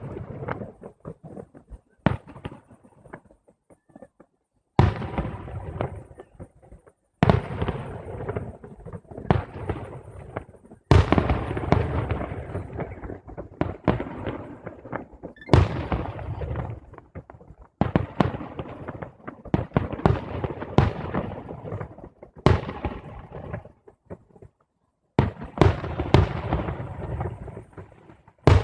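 Fireworks going off in a repeated series of sharp bangs, roughly every two to three seconds, each trailing into a crackling fade.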